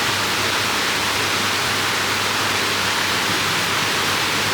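Heavy storm rain pouring down steadily, an even rushing hiss with no let-up.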